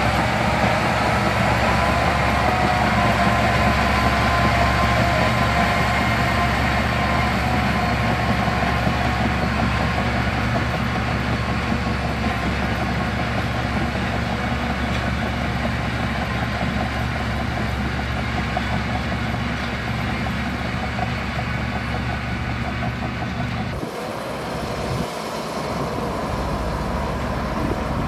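Heavy diesel engine of a construction vehicle running steadily at a constant speed, with an abrupt change in the sound about 24 seconds in.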